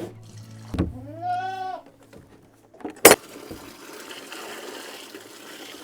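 A Nubian goat bleats once, a single call that rises and falls, about a second in, just after a dull thump. About three seconds in there is a sharp knock, followed by a faint steady hiss.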